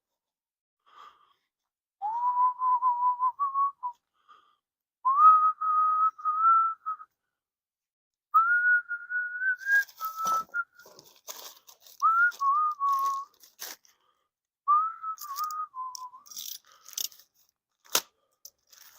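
A person whistling a tune in short phrases with small slides in pitch. From about halfway there is scattered crunching and crinkling, with a sharp click near the end.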